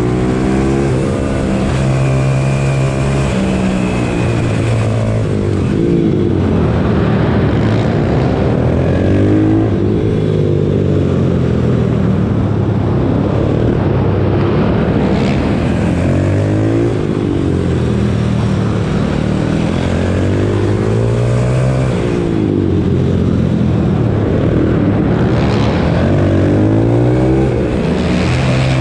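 Pit bike's single-cylinder engine heard from on board, revving up and dropping back again and again as the bike accelerates out of corners and slows into them.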